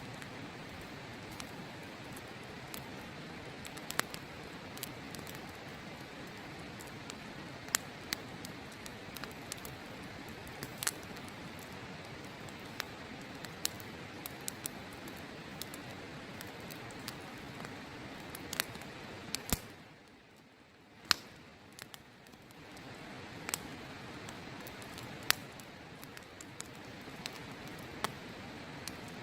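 Wood campfire crackling, with sharp irregular pops and snaps, over the steady rushing of a river. The rushing drops away for a couple of seconds about two-thirds of the way through while a loud pop sounds, then returns.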